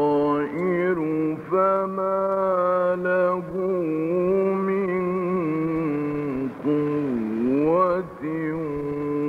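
Male Quran reciter in the melodic mujawwad style, holding long drawn-out syllables with slow rises, falls and wavers in pitch, broken by a few short breaths.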